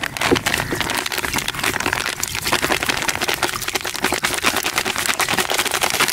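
Washing powder pouring from a plastic packet into water in a plastic bucket: a steady, dense crackling hiss of the granules hitting the water.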